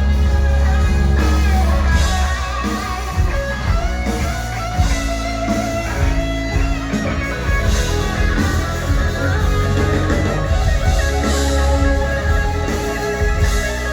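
Rock music led by guitar, with a heavy bass and a steady beat.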